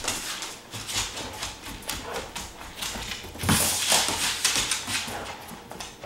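A dog's claws clicking and scrabbling on a hard laminate floor as it moves about playing with a toy, with a louder scuffle and thud about three and a half seconds in.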